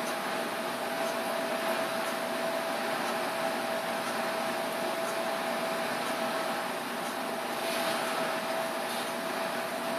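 Steady machine hum and hiss with a constant mid-pitched whine running unchanged throughout, room noise while nothing else happens.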